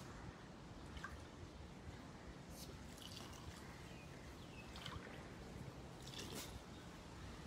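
Water poured from a plastic jug into a small measuring cup and tipped into a blender jug, heard as a few short faint trickles.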